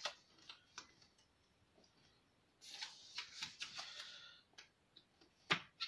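Faint rustling and crackling as adhesive-backed foam weather strip is handled and pressed onto a window sill. A rustling stretch runs through the middle, with scattered light clicks and taps around it.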